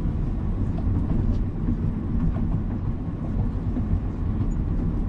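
Steady low rumble of a car driving along a wet street: engine and tyre noise.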